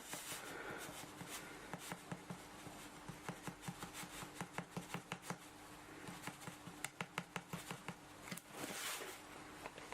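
A scoop spooning ground coffee into an espresso filter basket: a run of small irregular clicks and taps, with a short rustle of grounds near the end, over a faint steady hum.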